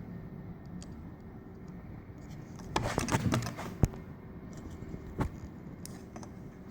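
Plastic side-mirror parts and wiring connectors being handled: a brief burst of rattling and scraping about three seconds in, then a couple of sharp clicks.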